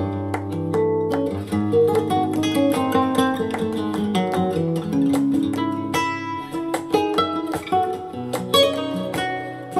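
Plucked acoustic-guitar music with quick picked notes over sustained low notes, played back through a pair of Pioneer CS-501 loudspeakers and picked up in the room.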